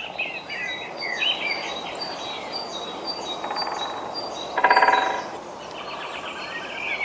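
Several small birds chirping and singing, with one repeating a short high note over and over. About halfway through come two short rapid rattles, the second one louder.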